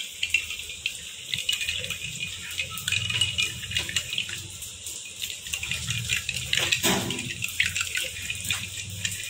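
A metal teaspoon stirring cold milk with ice cubes in ceramic mugs: the liquid swirls and the spoon clinks against the mug sides, with one louder knock about seven seconds in. A low steady hum runs underneath.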